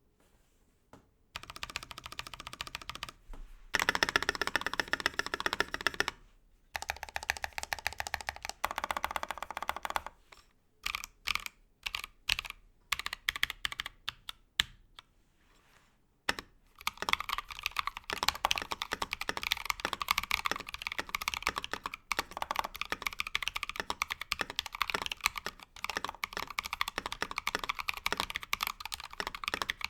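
Mechanical keyboard with Tecsee Ice Candy switches in a brass plate, with Cherry-profile keycaps, being typed on: runs of fast typing, a few slow separate keystrokes in the middle, then continuous fast typing.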